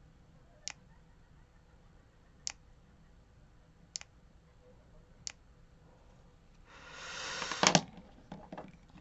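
Four sharp single clicks one to two seconds apart, then a short swell of handling noise ending in two loud clicks close together, with a few softer clicks after.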